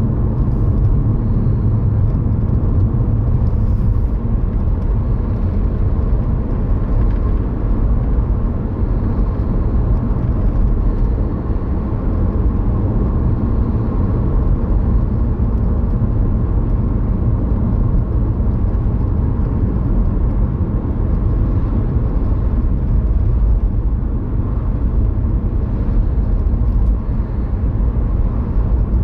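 A car driving at a steady pace: a continuous low rumble of engine and tyres on the road, with no sudden changes.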